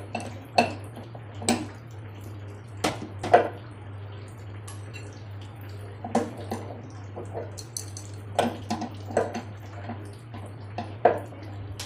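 Irregular metallic clicks and knocks of hand tools working on a front-load washing machine's drum pulley to remove it, about a dozen scattered through, over a steady low hum.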